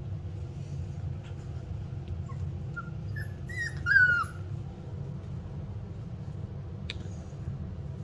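Rottweiler puppy whimpering: a few short high whines about three seconds in, building to a longer, louder whine near four seconds that rises and then falls.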